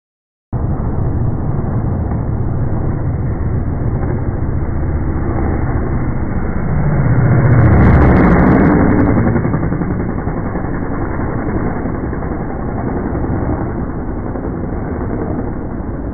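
Steady motor-vehicle rumble that swells about halfway through and then eases off again.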